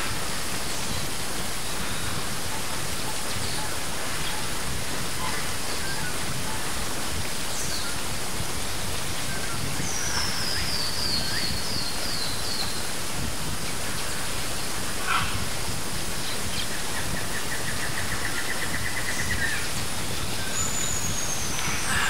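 Waterfall cascading down rock slabs: a steady, even rushing of water. Birds call over it: a falling run of quick high notes about halfway through, a fast trill a little later, and a falling whistle near the end.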